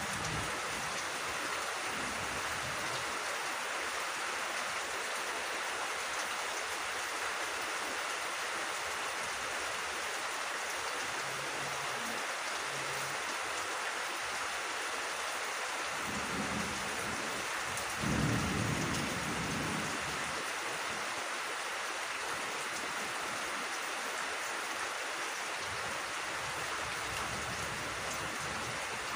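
Steady rain falling on grass and leaves, an even hiss, with a brief low rumble a little over halfway through.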